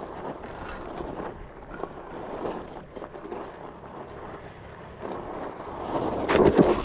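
Wind buffeting the microphone while riding a Onewheel over sand, a steady rushing noise that swells into a louder burst near the end.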